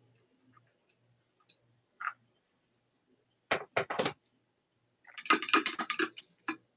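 Coffee brewing gear handled during a pour-over bloom: a few faint ticks, then three sharp knocks as a gooseneck kettle is set down about halfway in, then a quick clatter of clicks as the glass dripper and server are picked up and swirled.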